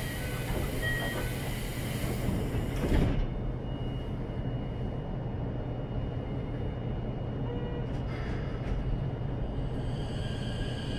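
Sliding passenger doors of a Keikyu 1500-series train car closing, shutting with a thud about three seconds in. The platform noise is then cut off, leaving the steady low hum of the standing car.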